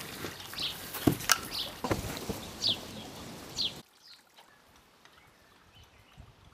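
Birds chirping in short, falling calls about once a second over outdoor background noise, with a few sharp knocks and thumps between one and two seconds in. A little before the four-second mark the sound drops away suddenly, leaving only faint birdsong.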